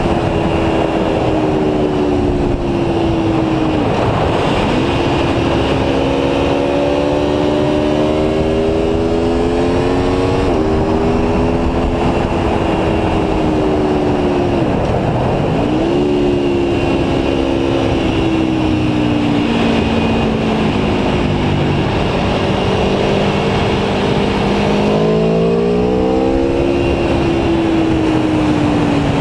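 Aprilia Tuono V4 1100 Factory's V4 engine under way at speed, its note climbing slowly and then dropping, suddenly at times, as the rider accelerates, shifts and rolls off, several times over, with a steady rush of wind noise.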